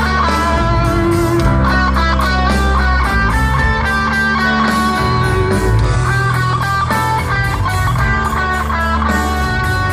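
Live rock band playing loudly: electric guitars, bass and drums, with a melody of held, stepping notes over a steady beat.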